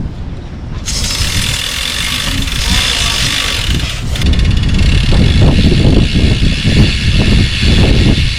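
Aerosol degreaser sprayed onto a bicycle's sprocket and chain: a steady hiss in two long bursts, the first starting about a second in and the second at about four seconds. A loud low rumble accompanies the second burst.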